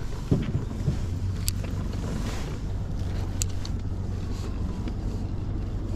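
Wind buffeting the microphone over water lapping on a kayak, with a steady low rumble. A few sharp clicks or knocks stand out, about a third of a second in, about a second and a half in, and about three and a half seconds in.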